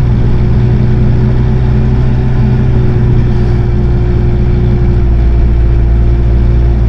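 Vehicle engine running steadily under way, a loud low drone with a held tone that drops slightly near the end.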